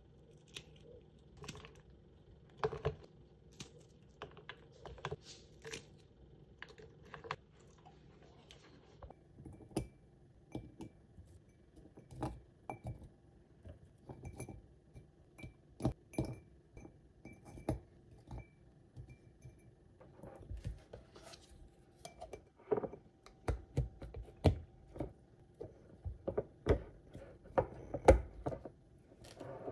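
Frozen yogurt bark snapped apart by hand with small cracks and crunches. Pieces are then dropped into glass Weck jars, giving light clinks and knocks on the glass. Near the end, white lids are pressed onto the jars with sharper clicks, the loudest sounds in the stretch.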